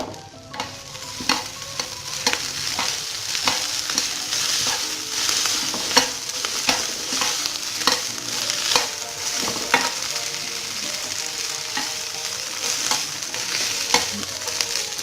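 Instant noodles with beef and bok choy sizzling as they are stir-fried in a pan, with a cooking utensil clacking against the pan again and again as the food is tossed.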